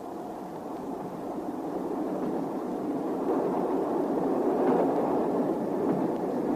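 Moving train's steady running noise, a rumbling hiss without clear wheel clicks, growing gradually louder.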